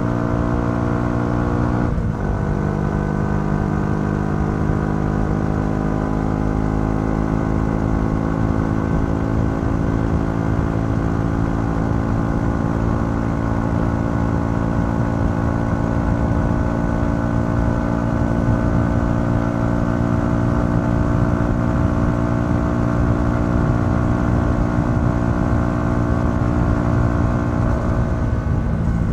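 Yamaha XSR 125's single-cylinder four-stroke engine running at road speed through its stock exhaust, heard from the rider's seat. There is a gear change about two seconds in, then the engine note climbs slowly as the bike gains speed, with a dip in the note at the very end.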